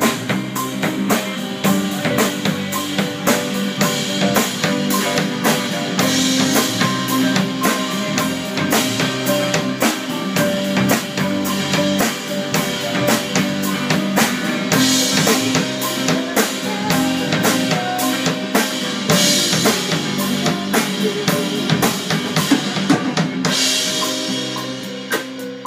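A band playing a song, with a busy drum kit to the fore over sustained low bass notes.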